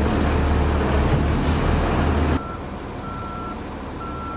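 A heavy engine runs loudly with a deep hum, then gives way suddenly to a quieter background in which an aircraft tow tractor's backup alarm beeps three times, about one half-second beep each second.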